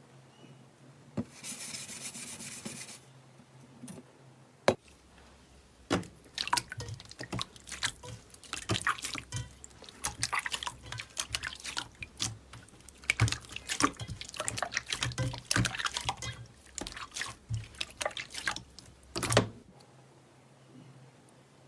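Slime being squeezed and worked by hand, making sticky, wet clicks and pops. They are sparse at first, come thick and irregular from about six seconds in, and stop shortly before the end.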